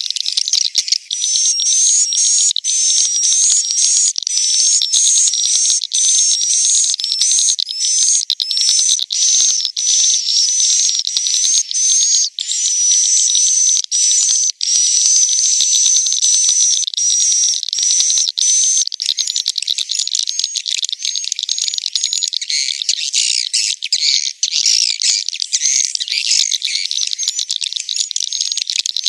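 Swiftlets twittering in a swiftlet roosting-lure call recorded inside a swiftlet house: high, rapid chirps repeating about twice a second, becoming a denser, less regular chatter past the middle.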